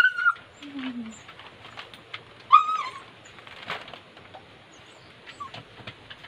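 Dogs giving two short, high whining yelps, one at the start and one about two and a half seconds in, with light scattered taps between. They are begging excitedly for food held overhead.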